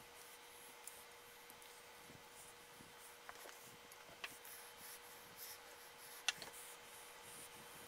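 Faint handling sounds of small screws being worked by hand while threadlocker is applied: light rubbing and a few small clicks, the sharpest about six seconds in, over a steady faint hum.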